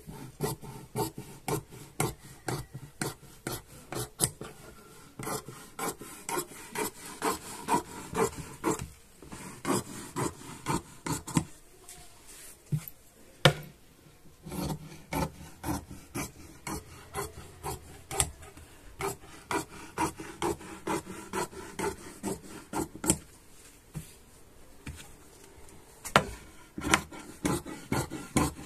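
Large tailor's shears cutting along a chalk line through trouser cloth: a long run of crisp snips, about two a second, broken by a few short pauses.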